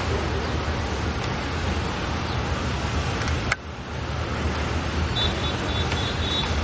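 Steady city traffic noise with a constant low hum. It drops off sharply for a moment about halfway through, and a few faint, short, high peeping notes come near the end.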